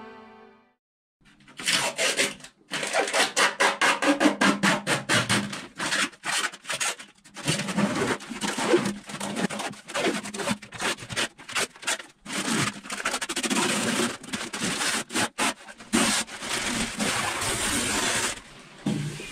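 Peel ply fabric being pulled off a cured fibreglass (GRP) shower pan base: a crackly ripping as the cloth tears away from the hardened resin. It comes in a series of pulls with brief pauses between them, starting about a second in.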